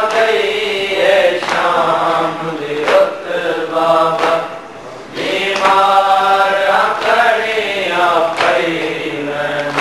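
A group of men chanting a mournful lament together in a slow, drawn-out melody, with sharp slaps about every second and a half. The chant drops away briefly about halfway through, then resumes.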